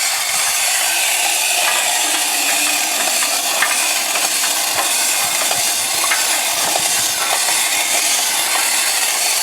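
Tin wind-up robot toy's clockwork running: a steady whirring hiss with faint irregular ticks.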